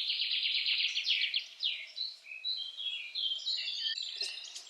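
A small songbird singing: a fast, high trill in the first second or so, then a run of varied short chirps and whistles.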